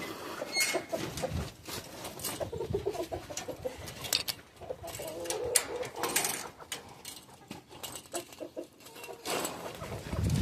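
Chickens clucking softly in short calls, among scattered clicks and scratching of birds moving about, with a low thump near the end.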